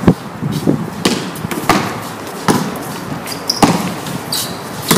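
Basketball bouncing on a hard court: about six sharp bounces at uneven intervals, with a couple of short high squeaks in the second half.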